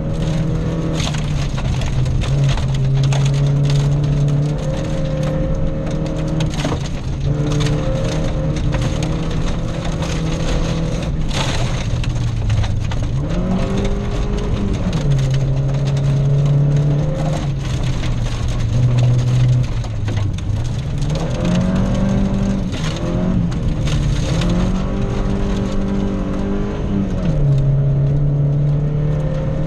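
Volvo rally car's engine heard from inside the cabin, driven hard along a gravel stage, its note dropping and climbing several times as the driver lifts and changes gear. Many short sharp cracks and ticks of gravel against the car run through it.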